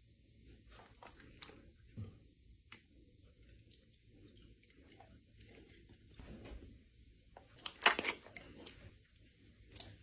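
Soft handling noises of fingers scooping solid coconut oil out of a plastic tub and rubbing it into a dog's coat, with scattered small clicks and a sharper clatter about eight seconds in.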